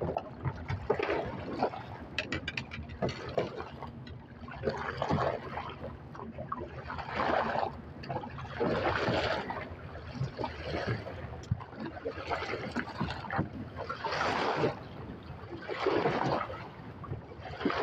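Small waves sloshing and slapping against the side of a small fibreglass boat, in uneven swells every second or two.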